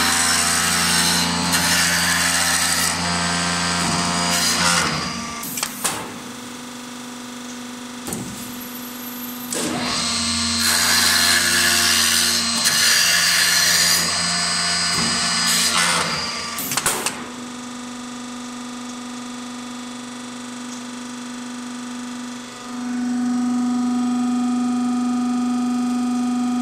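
High-speed automatic wood lathe cutting a spinning wooden blank: two loud stretches of cutting, the first lasting about five seconds and the second from about ten to seventeen seconds in, with a few sharp knocks between and after them. The machine then runs on without cutting, a steady hum that grows louder about three seconds before the end.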